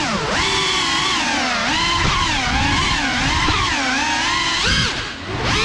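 Geprc Cinelog 35 cinewhoop's brushless motors and ducted propellers whining, the pitch rising and falling continually with the throttle, with a brief throttle dip near the end.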